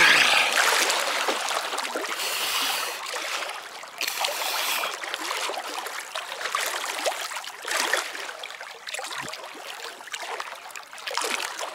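Lake water splashing and sloshing against a camera held at the surface while a person swims, loudest at the start as the feet kick.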